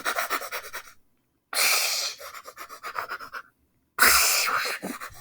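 A person's loud, breathy bursts, like panting or heavy blowing out: three of them, each starting suddenly and fading over one to two seconds.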